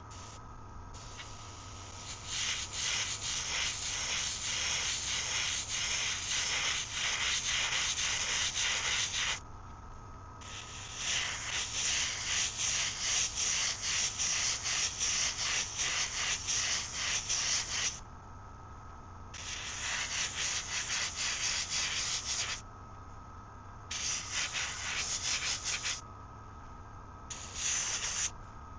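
Airbrush spraying paint, a hiss that comes in bursts of a few seconds each with short pauses as the trigger is pressed and released, over a steady low hum.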